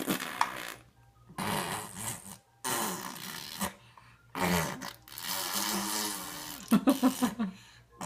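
A toddler making a run of breathy, noisy mouth and throat sounds in about six bursts of roughly a second each, a little voice showing in the later ones.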